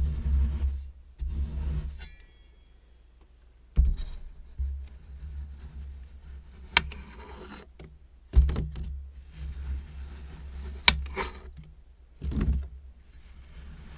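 Kinetic sand being cut, scraped and pressed with metal tools: dull thuds come and go, with a soft scraping between them and two sharp metallic clicks.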